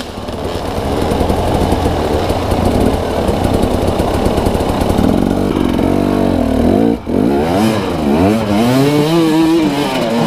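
Dirt bike engine revving hard, its pitch surging up and down over and over, during an unsuccessful attempt to ride up a slippery bank out of a creek. The throttle is chopped briefly about seven seconds in, then the engine revs up again.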